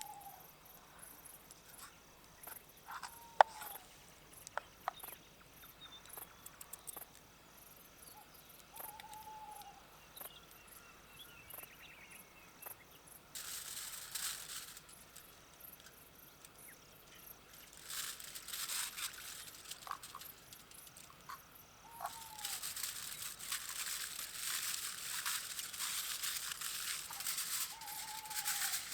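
Crickets chirping, with a short falling call repeated every few seconds and a few sharp clicks. From about halfway a hissing, crackling noise comes in twice briefly, then carries on and is the loudest sound.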